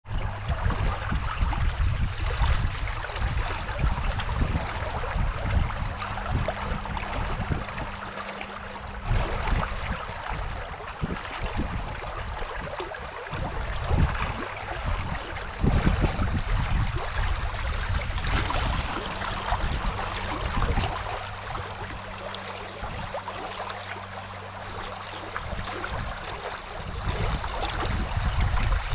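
Rushing river water, with gusts of wind buffeting the microphone and a faint steady low hum underneath.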